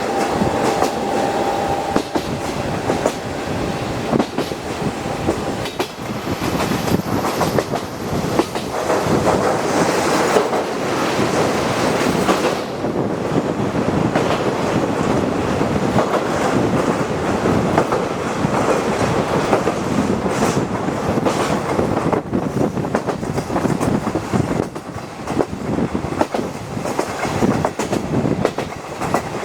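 Passenger coach of a locomotive-hauled train running along the track, heard from inside the coach: a steady rolling rumble with the wheels clattering over the rail joints.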